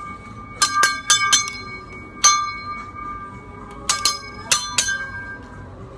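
A teppanyaki chef's steel spatulas and utensils clanging in a trick routine. There are about nine sharp metal strikes in quick clusters, each leaving a ringing tone: a run of four about a second in, one a second later, and a few more around four seconds in.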